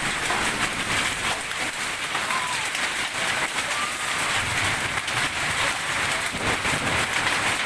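Hailstorm with heavy rain: hailstones and rain pelting a surface in a dense, steady patter of many small impacts.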